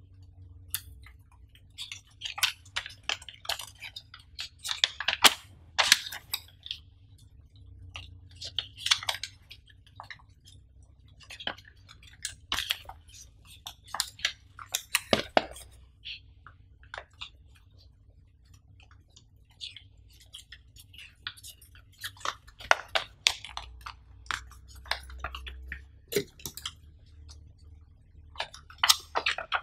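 Clear plastic bag crinkling and paper leaflets rustling as they are handled, in irregular clusters of crackles with short pauses between.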